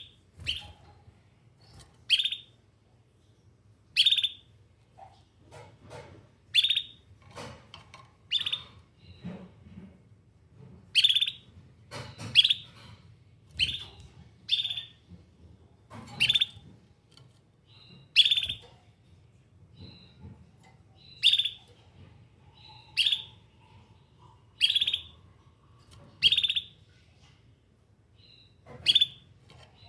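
Domestic canary giving short, sharp chirping calls, one every second or two, repeated steadily rather than in a continuous song. These are calls out to other canaries.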